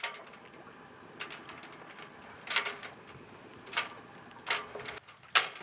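Dive flag flapping on a sailboat's mast in the wind: a steady hiss of wind, with five or six sharp snaps of the cloth at irregular intervals of about a second.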